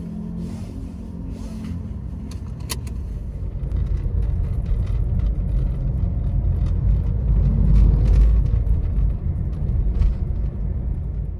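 A car driving, with a steady low rumble of engine and road noise that grows louder about halfway through, and a few light clicks early on.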